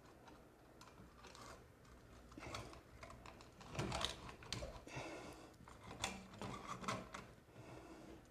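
Faint, scattered clicks and light metallic rattles of a metal ceiling fan mounting bracket being handled against a ceiling box while the wires are fed through its middle, with a few louder clicks near the middle.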